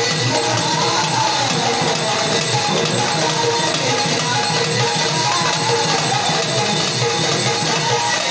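Music: a dholki hand drum playing a steady rhythm under a wavering melody line.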